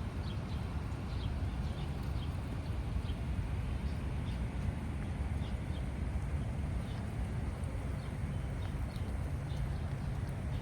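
Footsteps walking on a wet park path over a steady low outdoor rumble, with small birds chirping briefly and repeatedly.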